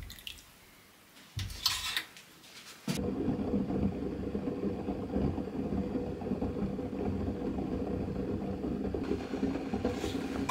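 Saucepan of liquid on an electric hot plate: a couple of brief scrapes and splashes as it is stirred, then from about three seconds in a steady, low, rumbling bubbling as the pot boils.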